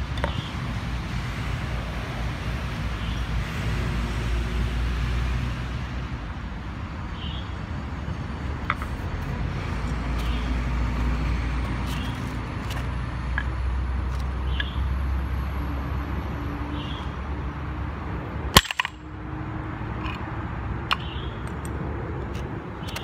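A claw hammer strikes a stone tile on asphalt with one sharp, loud blow about three-quarters of the way through, breaking the tile, after a few light taps and followed by small knocks of the broken pieces. A steady rumble of traffic runs underneath.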